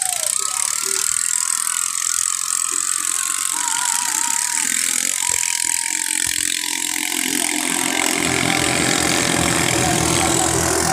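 Ketinting longtail boat engines running hard, a rattling mechanical drone that settles into a steadier, slightly louder tone in the second half.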